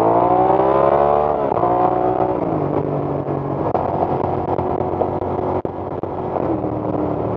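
Suzuki SV650 V-twin with a short Hindle aftermarket exhaust accelerating, its pitch climbing until an upshift about a second and a half in, then holding steady revs at cruise, with wind rush.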